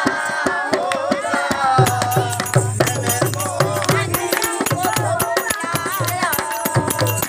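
A group of voices singing a Hindi Krishna bhajan. A dholak drum comes in about two seconds in, and clapping and hand percussion keep the beat.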